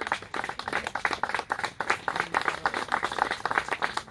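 Group of people applauding, many hand claps overlapping in a steady patter.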